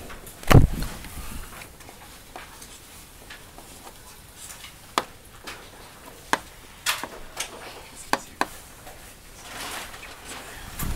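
A heavy thump about half a second in, then scattered light knocks and clicks, about a dozen spread irregularly.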